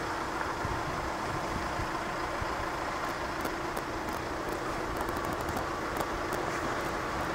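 Railway level crossing warning bell ringing steadily while the crossing is active, over a low rumble that builds as a train approaches.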